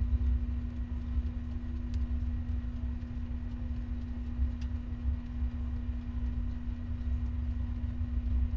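Gas stove burner running under a frying pan: a steady low rumble with a constant hum over it and a few faint ticks.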